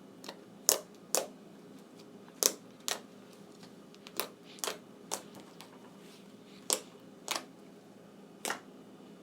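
Slime being played with, giving a series of sharp clicking pops from trapped air, about a dozen at irregular intervals.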